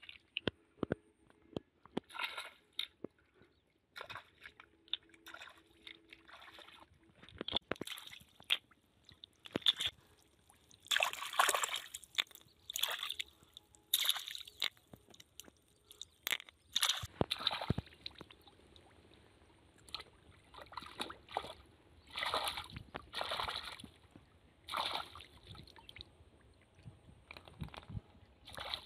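Hands sloshing and splashing in shallow muddy water, groping through the mud for freshwater snails, in irregular bursts with scattered short clicks.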